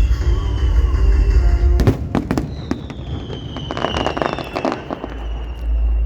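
Fireworks exploding in rapid crackling clusters, about two and four seconds in, with a high tone gliding slowly downward and deep rumbling booms at the start and near the end, over music.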